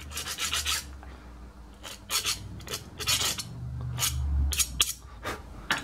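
Hand file scraping across the edge of a small freshly turned metal bush: a quick run of short strokes at the start, then single strokes spaced out through the rest.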